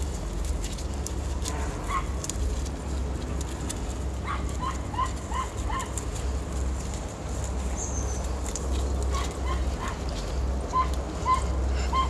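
Two bouts of short, high, hooked animal calls, about four in quick succession near the middle and several more near the end, heard at a distance. Under them runs a steady low rumble of wind and handling on the microphone, with light crackling of dry grass and twigs brushing past.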